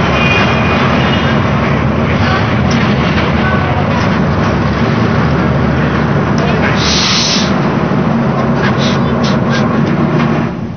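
Steady engine-like drone with indistinct voices over it, and a short hiss about seven seconds in.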